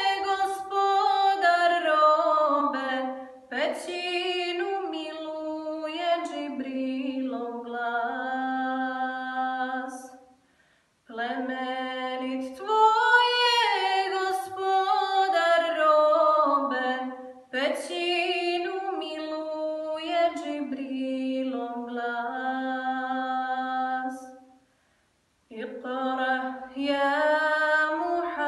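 A woman's solo voice singing a kasida, a Bosnian Islamic devotional song, unaccompanied. She sings long phrases of held, wavering notes, with brief pauses for breath about ten seconds in and again about three-quarters of the way through.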